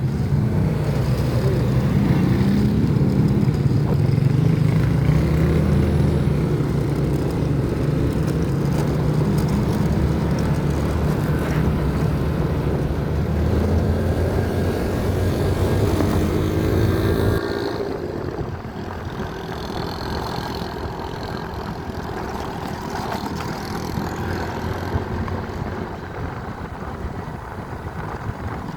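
A motor vehicle's engine running steadily with a low hum, as if while driving. About two-thirds of the way in it suddenly gets quieter, leaving a softer rumble.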